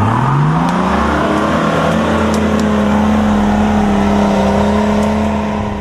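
Off-road 4x4 truck's engine revving up over about a second and a half and held at high revs under load, dropping back near the end.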